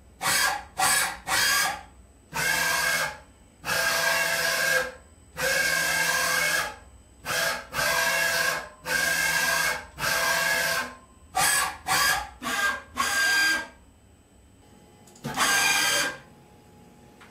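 A small power tool, drill-like, run in repeated start-stop bursts of half a second to a second, with short pauses between. There is a longer pause near the end before one last burst.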